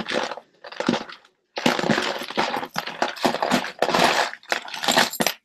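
Costume jewelry clattering and clinking as hands rummage through a pile of it, in dense rapid rattles with a short pause about a second in.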